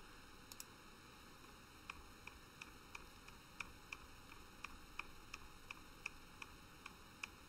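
A felt-tip marker's tip ticking on paper as short lines are drawn from dot to dot. The light ticks start about two seconds in and come roughly three a second, slightly uneven, over a faint steady hiss.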